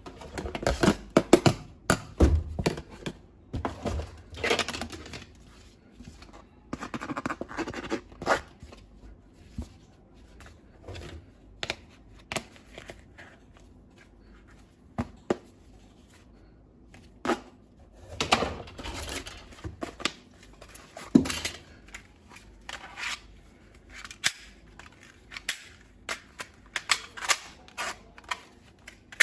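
Plastic toy guns and their packaging being handled: scattered sharp clicks and snaps mixed with short bursts of rustling and tearing.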